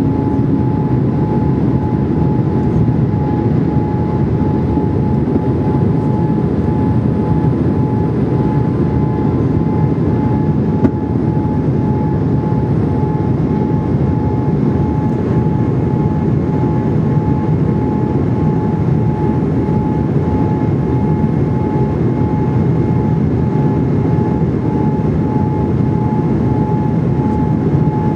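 Steady cabin noise of a Boeing 787-8 Dreamliner on approach with flaps extended, heard from a window seat over the wing: a low rush of airflow and engine noise with a steady mid-pitched hum running through it.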